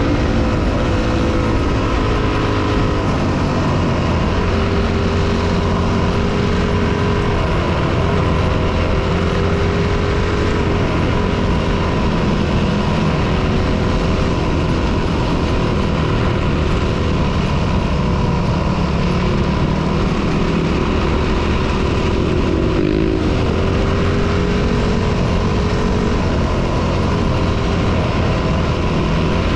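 On-board sound of a dirt bike under way: the engine runs steadily, its pitch rising and falling a little with the throttle, over a constant rush of wind and tyre noise.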